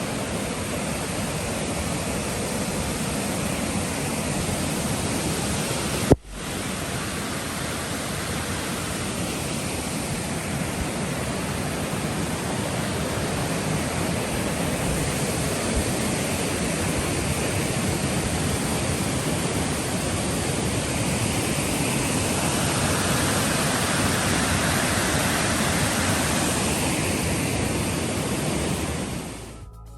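Steady rushing noise of water. It breaks off sharply for an instant about six seconds in and fades out near the end.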